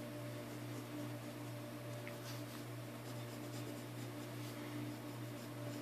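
Pencil lead scratching on paper in short sketching strokes, over a steady low hum.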